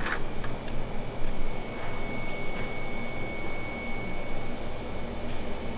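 Steady machine hum and hiss, like a kitchen fan, with a sharp click at the start and a thin high steady tone lasting about three seconds in the middle.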